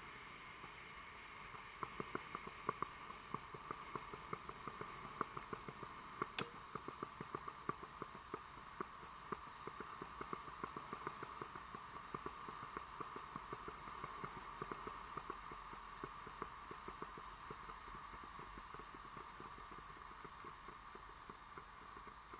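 Coffee machine running: a steady hum overlaid, from about two seconds in, by a rapid, irregular crackle of small pops that grows sparser toward the end, with one sharp click about six seconds in.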